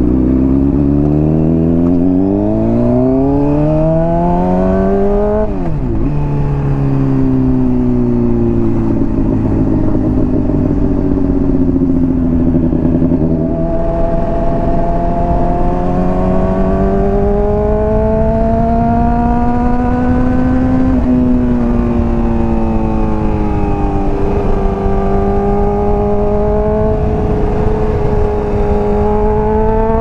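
Honda CBR600RR inline-four engine through a Hotbodies Stinger slip-on exhaust, on the move: revs climb steeply for about five seconds and drop sharply on an upshift, then hold and rise slowly while cruising, with another quick upshift about 21 seconds in.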